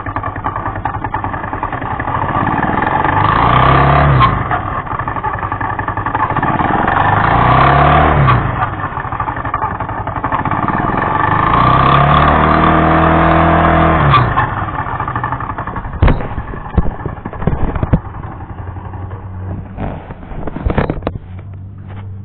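Vento Lithium 190 motorcycle engine revved up and back down three times, then idling with several sharp knocks near the end. It is the strange noise that appeared after the clutch was replaced.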